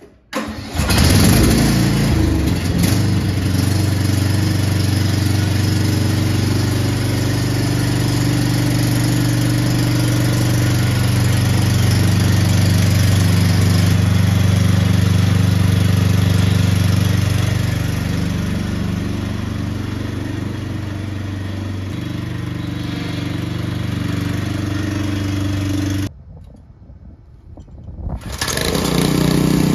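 Cub Cadet XT1 LT42 riding mower's engine starting about half a second in and running steadily, a little slower past the middle, then stopping abruptly. In the last couple of seconds a gas pressure washer's engine starts up.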